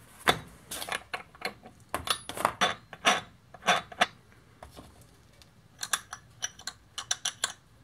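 Metal clinks and knocks of tools and the chainsaw's centrifugal clutch being worked loose and lifted off the crankshaft, irregular throughout, with a quick run of sharp ringing clicks near the end.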